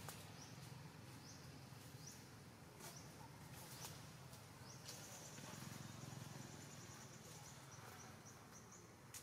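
Faint outdoor ambience of small high-pitched chirps from birds and insects, with a steady high trill from about halfway through until near the end. A low rumble sits beneath, and there are a few faint clicks.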